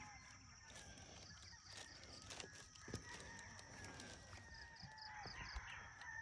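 Faint outdoor quiet with distant fowl calling, a rooster crowing among them, over a steady high-pitched hum, with a few faint clicks.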